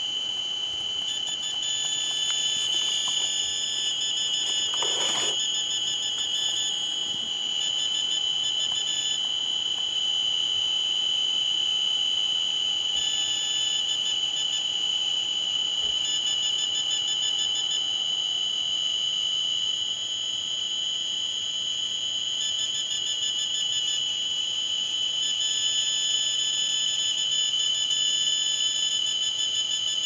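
Cornet ED-7 electrosmog meter's audio output sounding the 300 MHz–3 GHz radio signals it picks up, such as WLAN: a steady, high-pitched electronic tone with a buzzy edge, broken at times by stretches of rapid, even pulsing. A brief rushing noise comes about five seconds in.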